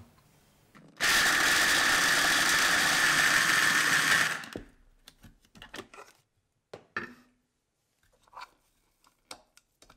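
Electric food chopper running for about three and a half seconds, chopping raisins together with nuts, then stopping. A few light clicks and knocks follow.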